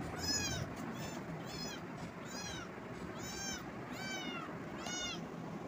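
A kitten meowing over and over: about seven short, high-pitched meows, each rising and falling, a little under a second apart.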